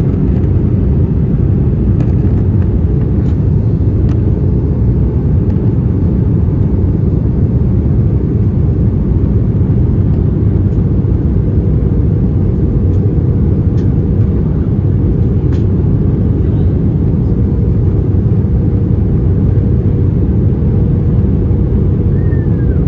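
Cabin noise inside an Airbus A320-214 in flight: a steady low rumble of airflow and its CFM56-5B jet engines, with a faint constant hum above it.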